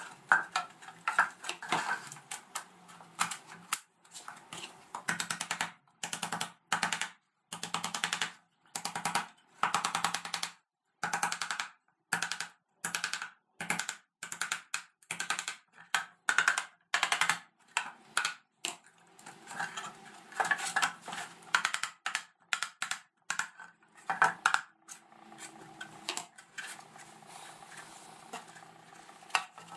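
Small wooden mallet knocking laser-cut plywood finger joints of a wooden box together, a long run of short wooden knocks about two a second. Near the end the knocks thin out into quieter handling of the box.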